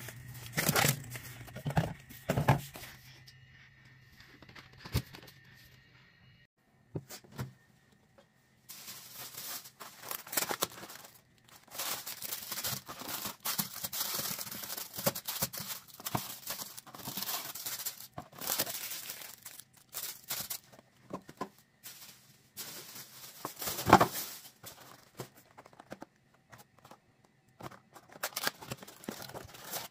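Plastic and paper food packaging rustling, crinkling and tearing as groceries are unpacked and handled, with scattered knocks. After a few knocks and some quiet seconds the rustling runs dense, with one sharp knock about two thirds of the way in.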